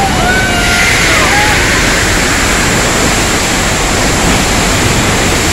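Steady, loud rush of floodwater from the Earthquake attraction's flash-flood effect, with a few brief gliding cries in the first second and a half.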